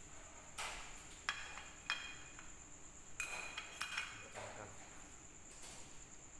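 Small metal parts clinking and tapping as a pendant lamp's black metal ceiling canopy is handled and its cord adjusted: a scatter of short clicks, a few with a brief metallic ring.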